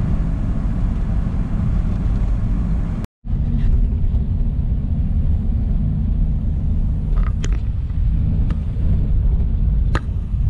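1956 Ford Thunderbird's V8 running, heard from inside the open cabin as a steady low engine and road rumble. The sound cuts out for a split second about three seconds in, then resumes the same.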